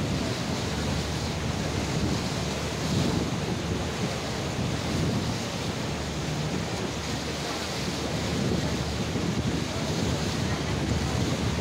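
Steady rushing wind and water noise aboard a moving river boat, with wind buffeting the microphone.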